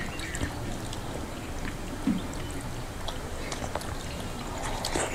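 Eating by hand: soft wet chewing and small mouth clicks as soft khichuri (rice and lentils) is eaten, with fingers squelching the moist mix on steel plates, and a short low hum from one eater about two seconds in.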